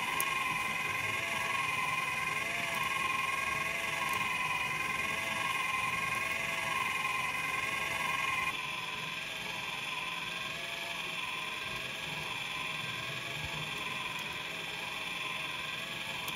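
Motorized filament respooler winding 3D-printer filament onto a new spool: its electric motor and plastic gear train give a steady whine whose pitch wavers slightly. About eight seconds in the sound shifts abruptly to a slightly quieter version of the same whine.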